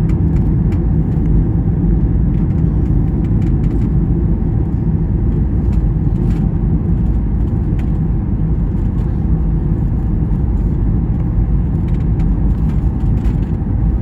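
Steady low rumble inside the cabin of a Boeing 737 MAX 8, the airflow and CFM LEAP-1B engine noise heard from a rear window seat, with faint scattered clicks and rattles.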